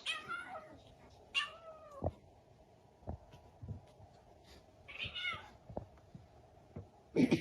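A cat meowing three times, each meow rising and then falling in pitch. A few light knocks come in between.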